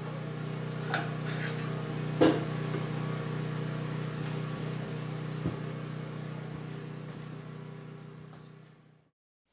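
A steady, even machine hum with a few sharp knocks and clicks, dying away right after a wood cut on a power saw; it fades gradually to silence near the end.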